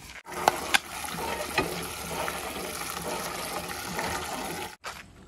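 Water from a hand pump gushing into a steel bucket, a steady splashing rush with a few sharp knocks near the start. It stops abruptly near the end.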